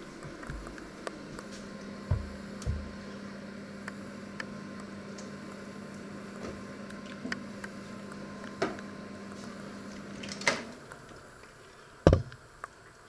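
Panasonic inverter microwave oven running with a steady hum, with a few small clicks and soft knocks over it. The hum stops about ten and a half seconds in, and the oven door opens with a loud clunk a second and a half later.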